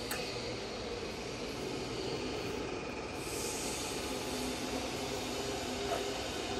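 Csepel RF 50/1600 radial arm drill running with its spindle on power feed: a steady machine hum from the drill head's gearing, with a short click at the start as the feed is engaged. A higher hiss joins about three seconds in.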